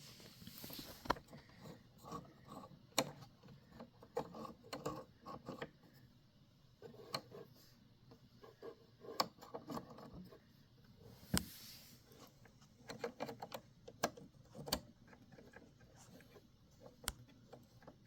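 Irregular small clicks, taps and rattles of the bobbin plate being handled and fitted back into a Brother SE630 sewing and embroidery machine, with a few sharper clicks scattered through.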